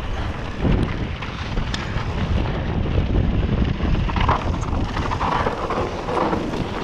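Wind buffeting the action camera's microphone, with the rumble of mountain-bike tyres rolling over a dirt and gravel track.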